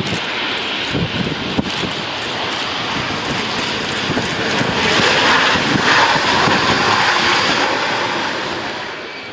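Airliner engines passing close by: a broad roar that swells to its loudest about five to seven seconds in, then fades.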